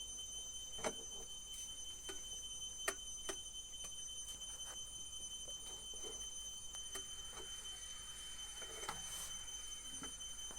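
Scattered light clicks and taps, like an electric kettle being handled and its switch worked on the base, over a steady high-pitched whine.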